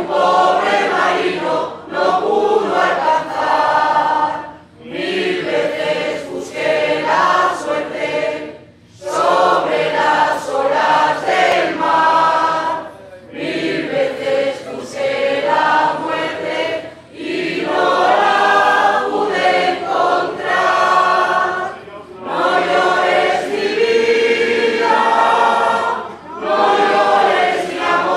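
Mixed choir of women's and men's voices singing a habanera in Spanish, in phrases a few seconds long with short breaths between them.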